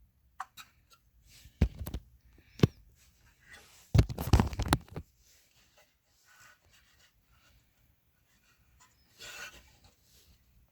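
A Pyrotronics fire alarm pull station being handled: a couple of sharp clicks about two seconds in, then a short cluster of louder knocks and clicks around four seconds in, with a softer rustle near the end.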